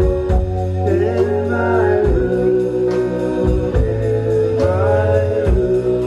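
Live band playing a slow song, with several voices singing long held notes together over acoustic guitar, bass and drums, heard from among the audience.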